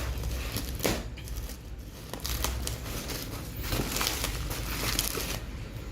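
Packaging being handled during an unboxing: irregular crinkling, rustling and tearing of wrapping and box material.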